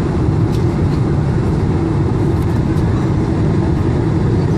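Steady low roar of a Boeing 747-400 cabin on final approach: engine and airflow noise heard from inside the passenger cabin, with a faint held drone beneath it.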